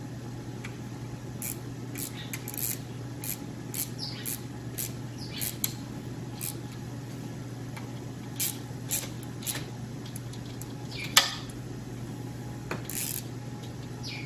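Small hand ratchet with a socket extension working bolts on a two-stroke engine's intake manifold: scattered light metallic clicks and taps, with one sharper click about eleven seconds in, over a steady low hum.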